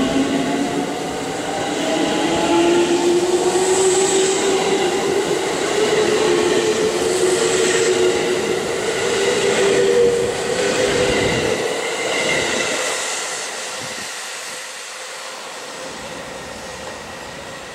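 JR Central 313 series electric train pulling out and accelerating past: its motors give a whine that climbs steadily in pitch along with the rumble of the cars. The sound then fades over the last several seconds as the train leaves.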